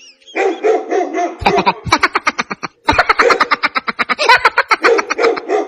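Comic background music: a short held note, then a fast run of rapid, evenly spaced plucked notes.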